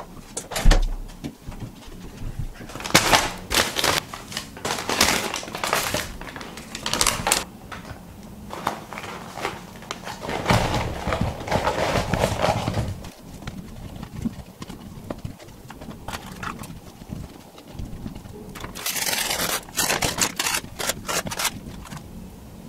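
Paper McNuggets box rustling and crinkling as chicken nuggets are tipped out onto a wooden serving board. Irregular knocks and clatters come from food and sauce packets being set down on the wood.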